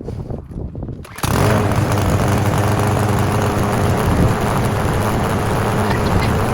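Self-priming walk-behind gas lawn mower engine starting up about a second in, then running steadily and evenly.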